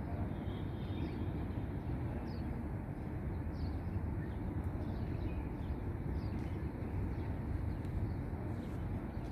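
Steady low outdoor rumble, with small birds chirping in short calls every second or so.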